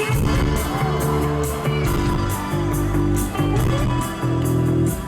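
Live rock band coming in all at once with the instrumental intro of a song: electric guitar and bass chords over a steady beat, before the vocals start.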